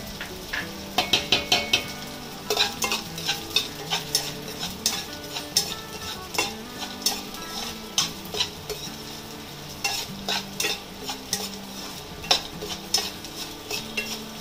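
Gond (edible gum) pieces frying in hot ghee in a nonstick kadhai, sizzling as they puff up, while a slotted spatula stirs them with frequent sharp scrapes and taps against the pan.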